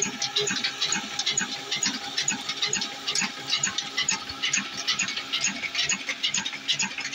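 Engine-driven flour mill (chakki) grinding grain: a dense, fast, irregular rattling clatter, over a slow regular low beat from the old Ruston engine that drives it.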